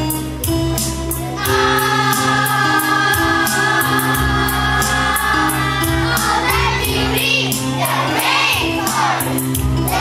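A group of children singing together over backing music with a steady beat and a bass line. The voices come in strongly about two-thirds of the way through.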